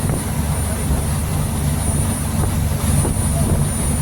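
Boat engine running steadily underway, a low even drone, with a thin steady high-pitched tone above it.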